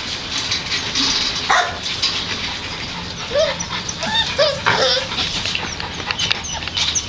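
American Pit Bull Terrier puppies whimpering and yipping, with a cluster of short high cries in the middle, over many small clicks and scrapes.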